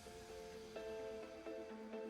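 Background music: a gentle melody of plucked or picked notes changing about every half second.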